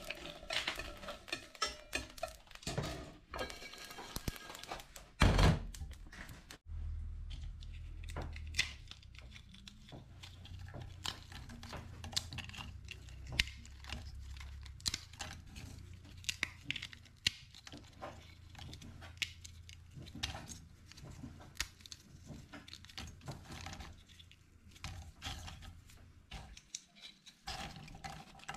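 Dry toasted pho spices (cinnamon sticks, star anise and coriander seeds) clicking, rattling and scraping in a stainless steel pan as they are stirred with chopsticks, then picked over and bagged by hand, with a single loud thunk about five seconds in. A low steady hum runs underneath from about six seconds in.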